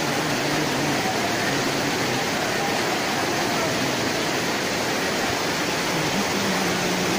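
Steady rush of a monsoon waterfall and stream, a dense, even roar of water with no pauses.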